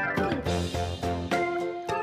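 Background music: an upbeat instrumental with a steady beat, with a quick falling glide at the start.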